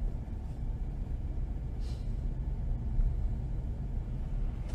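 Low steady rumble of a car driving on a snow-covered road, engine and tyre noise heard from inside the car.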